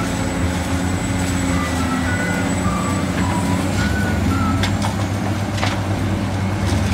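Large Caterpillar hydraulic excavator working, its diesel engine running steadily, with a couple of short metallic clanks about two-thirds of the way through and faint higher tones that shift in pitch.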